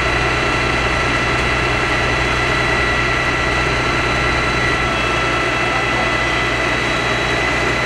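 Heavy engine running steadily, a constant low drone with a steady high whine over it.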